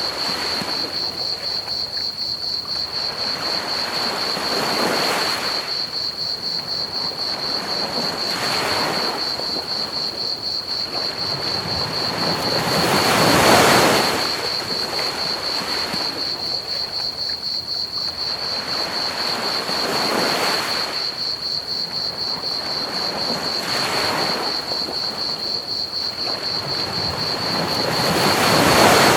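Ocean waves washing onto a beach, one surge every four to five seconds, the biggest about halfway through and again near the end, over a steady hiss. Crickets chirp throughout in a constant, high, rapidly pulsing trill.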